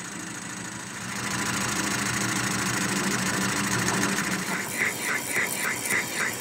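13-inch South Bend metal lathe running under a heavy cut, its carbide cutter taking about 80 thousandths off aluminium. The steady machine hum grows louder about a second in. In the second half a higher chirp repeats about three times a second.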